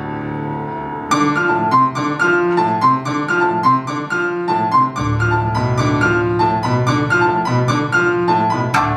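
Shamisen and grand piano playing an instrumental piece together: a held chord, then from about a second in a quick run of short, sharply struck notes, with low bass notes joining about halfway through.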